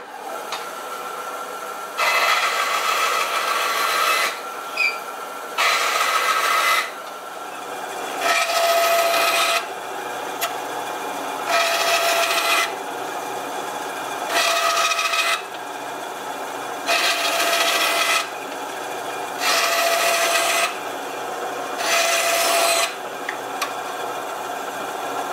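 Bridgewood 9-inch bench band saw switched on and running with a steady hum. Its new blade cuts a small piece of wood in eight short stretches, each a second or two of louder sawing.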